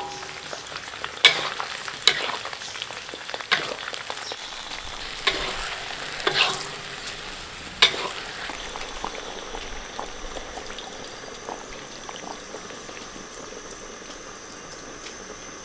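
Pork belly pieces sizzling in hot oil and caramelized sugar in a wok with scallion, ginger and garlic. A metal utensil scrapes and knocks against the wok as they are stirred, and the sizzling goes on more quietly once the stirring stops about eight seconds in.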